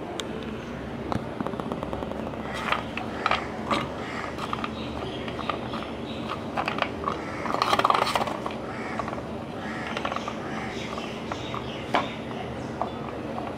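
Scattered light knocks and scrapes over a faint steady hum, with a short louder flurry of scraping and clatter just past the middle.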